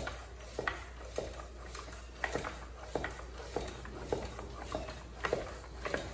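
Hand bicycle pump worked in steady strokes, a short click or knock at each stroke, nearly two a second, while inflating a completely flat car tire.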